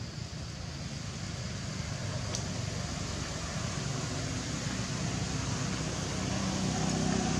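Motorbike engine passing on a road, growing louder over the last few seconds, over a steady background of traffic noise.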